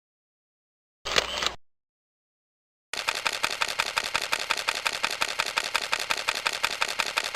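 Samsung Anycall SCH-V330 phone sound effects played back from file: a short clicking burst about a second in, then from about three seconds in a rapid, even train of clicks, about ten a second.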